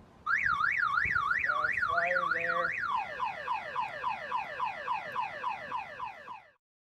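Car alarm siren going off, set off by a hand touching the car. It starts as a fast rising-and-falling warble about three times a second, then switches to quick falling whoops about four a second, and cuts off suddenly near the end.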